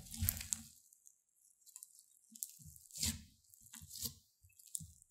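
Thick purple slime studded with small beads being squeezed and kneaded by hand: irregular wet squishes with crackles, a cluster at the start, a pause, then several short squishes from about two and a half seconds in.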